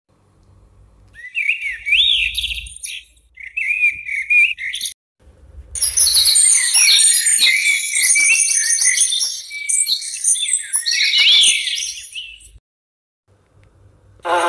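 Recorded birdsong played back by a children's sound book's built-in sound module. Two short bursts of chirping come first, then about seven seconds of a denser chorus of several birds singing and trilling together.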